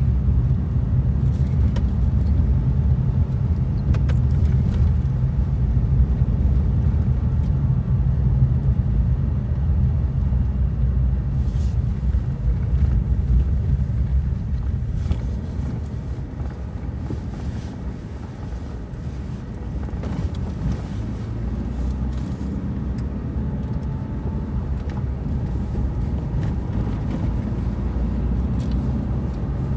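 A car driving: steady low engine and road rumble, which eases off for a few seconds in the middle and then picks up again.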